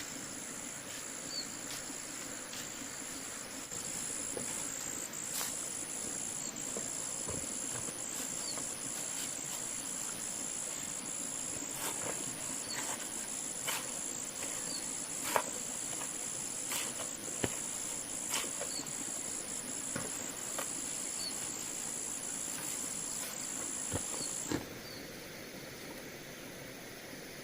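A steady, high-pitched insect chorus of two shrill tones, with scattered sharp clicks and knocks; the chorus cuts off suddenly near the end.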